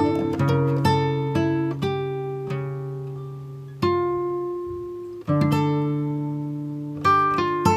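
Instrumental guitar music: single plucked notes that ring and fade, slowing to two long-held notes in the middle, then a quicker run of plucked notes near the end.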